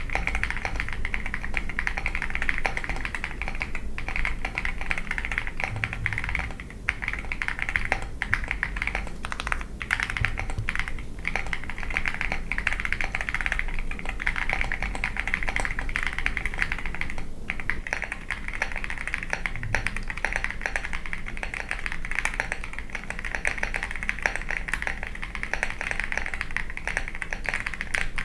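Continuous fast typing on a Chilkey Paw65, a gasket-mounted aluminium keyboard with an FR4 plate, Pink Lotus linear switches and Cherry-profile PBT keycaps: a dense, steady stream of key strokes.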